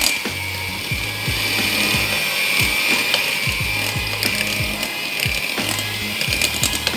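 Electric hand mixer running, its beaters churning thick choux paste in a glass bowl as egg is beaten in: a steady motor whine with irregular knocks from the beaters working the stiff dough.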